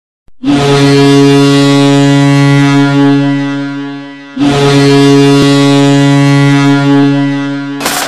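Ice hockey goal horn sounding two long, low-pitched blasts of about four seconds each, the first fading away just before the second; an electronic dance goal song kicks in right at the end.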